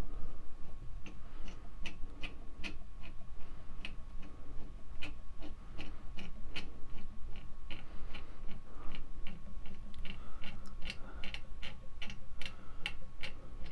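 Plastic cable drag chain on a Yora 3018-Pro CNC router clicking link by link as the carriage is slid along its rails by hand and the chain rolls and unrolls. The clicks are irregular, a few a second, and come faster near the end.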